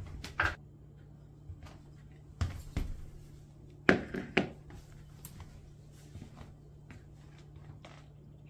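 A few knocks and clatters as a ceramic dish is handled and set down on a vinyl floor, the loudest about four seconds in, followed by faint small clicks as a cat starts eating from it.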